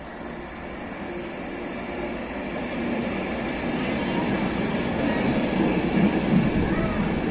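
Transport for Wales Mk4 passenger train, driving van trailer leading, running into the platform: rumble of wheels on rail growing steadily louder as the coaches come alongside.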